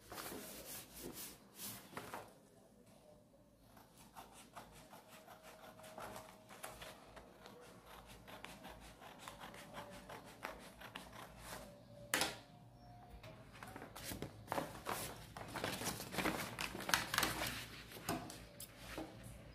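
Scissors snipping through a large sheet of cartolina (coloured card paper): many short snips, with the stiff sheet rustling as it is handled and turned. The snips are denser and louder in the second half, with one sharp crackle about twelve seconds in.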